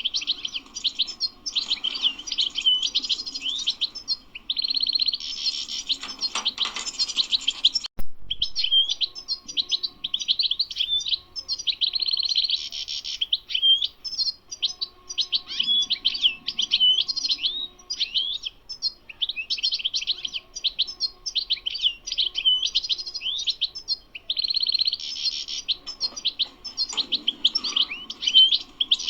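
European goldfinch singing: a fast, nearly continuous twittering of quick liquid notes, broken by short buzzy trills, with a brief break and a click about eight seconds in.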